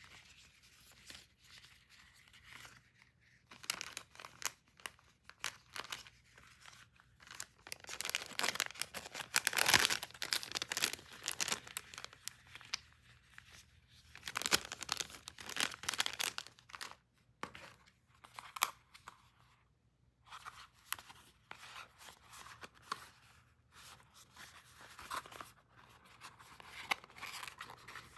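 Packaging being torn open and crinkled by hand: irregular tearing and rustling with small clicks, loudest in two stretches, about a third of the way in and just past halfway.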